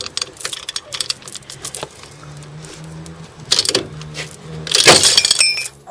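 Body-pulling rig straining on the crash-damaged steel front end of a Mk3 Ford Capri: rapid metallic clicks and clinks, then about five seconds in a loud bang and clatter as the pull gives way, its bolts pulled through the metal under too much stress.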